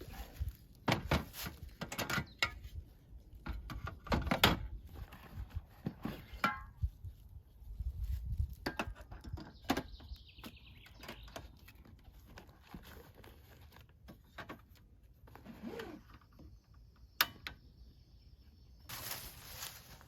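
Irregular knocks, clunks and clicks of things being handled and set down, with a short loud rustle near the end.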